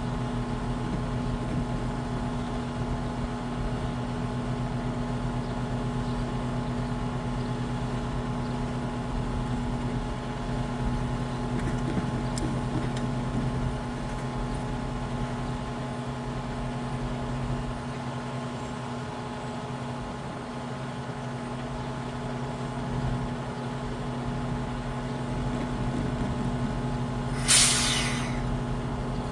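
Sperry rail-inspection truck idling with a steady hum, then a loud, sharp burst of air hiss lasting about a second near the end.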